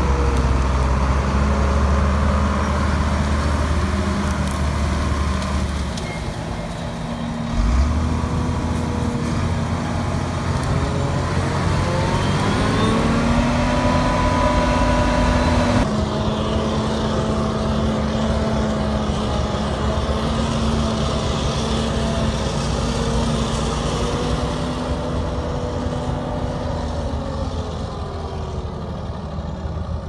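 Claas self-propelled forage harvester running under load as it cuts and chops silage corn: a loud, steady mechanical drone. Its pitch rises about a third of the way in, and the sound changes abruptly about halfway.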